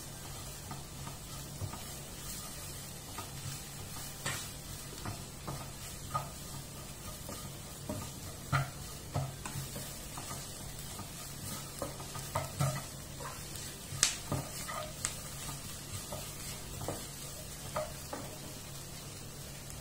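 Vegetables and flour sizzling in a nonstick frying pan while a slotted plastic spatula stirs them. It scrapes and clicks against the pan at irregular moments, with the sharpest knock about fourteen seconds in. The flour is being stirred and cooked through in the fat.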